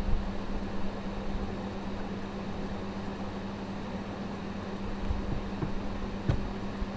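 Steady low hum over a hiss of room noise, with a faint knock about six seconds in.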